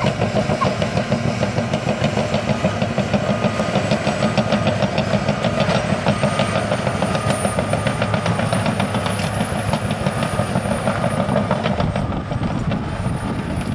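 Caterpillar D6T XW VPAT bulldozer at work: its diesel engine runs steadily under load over a fast, even clatter of the steel tracks.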